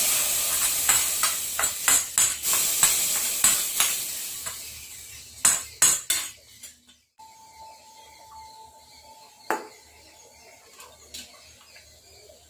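Hot fried spice masala scraped from an iron kadai into a pot of sambar with a metal spoon: a sizzle mixed with repeated scraping clinks of spoon on pan, fading over about five seconds. A few sharper clinks follow, then only a faint steady tone and a single knock.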